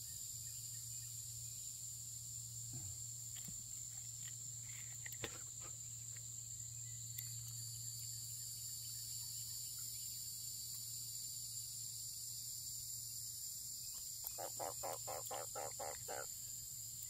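Steady, high-pitched chorus of crickets and other insects over a low steady hum, with a few faint clicks. Near the end a quick run of pulses, about four a second, lasts roughly two seconds.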